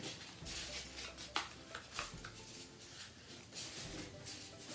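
Sheet of paper being handled and creased as an origami fold is made on a tabletop: a series of short rustles and crinkles.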